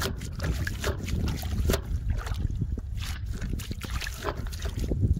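Wind rumble on the microphone with scattered knocks and small splashes from a wire-caged tub of live catfish and climbing perch sitting in a little water.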